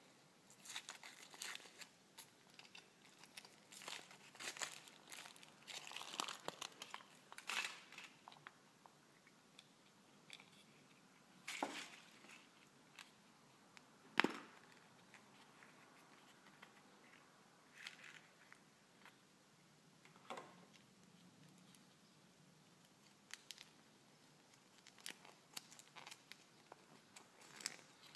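Foil wrapper of a Kinder Surprise chocolate egg crinkling as it is peeled off, a quick run of crackly rustles over the first eight seconds. About fourteen seconds in comes one sharp snap, the loudest sound, as the yellow plastic toy capsule is pried open, followed by a few scattered soft rustles of paper and foil.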